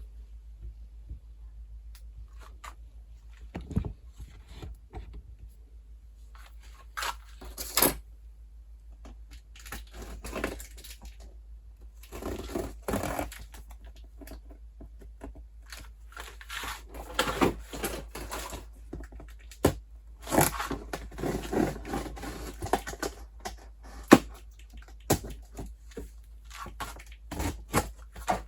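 A cardboard box and its packaging being opened and handled: irregular scraping, tearing and rustling, with sharp knocks and clicks, busier in the second half.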